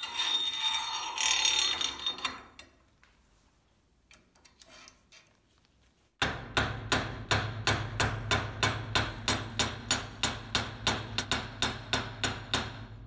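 A small hammer peening over the head of a steel rivet pin in a vise, more than twenty quick, even metallic blows at about three a second, starting about six seconds in, as the pin is peened into a rounded head. Before that, about two seconds of metal scraping and rattling at the start as the painted handle is fitted onto the wrench.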